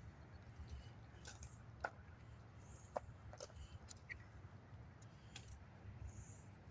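Freezing pond ice popping: faint, sharp clicks and pings at irregular intervals, the loudest about two and three seconds in, over a low steady rumble.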